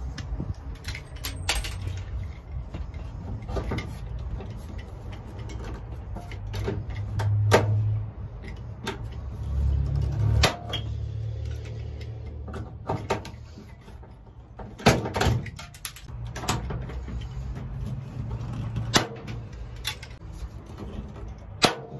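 Hand pop-rivet gun being handled, loaded and squeezed to set aluminium pop rivets in an aluminium angle rail: a dozen or so sharp metallic clicks and snaps at irregular intervals, over a low rumble that swells twice near the middle.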